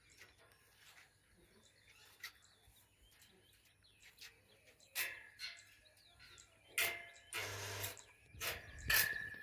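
Stick (arc) welding with a fresh electrode: a low steady hum, then the arc crackling in short bursts from about halfway in, with a longer run near the end.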